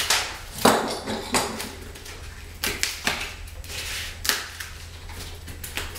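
Irregular short clicks, taps and scrapes of self-adhesive edge strips being handled and pressed down onto the floor by hand.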